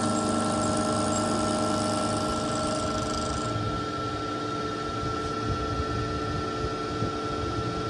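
Vertical milling machine running steadily with a whine, its end mill cutting a small metal workpiece. A higher hiss drops away about three and a half seconds in while the motor keeps running.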